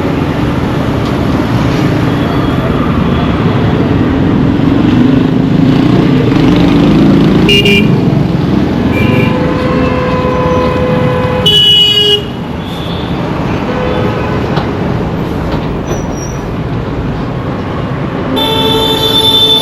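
Indian road traffic: a steady rumble of vehicle engines with horns honking several times, including a short loud blast about 12 seconds in and a long honk near the end.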